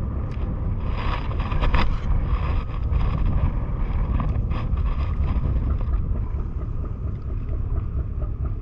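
Wind buffeting the camera microphone on a small boat, heard as a steady low rumble with water noise. A few short rustles come about a second in and again around four and a half seconds.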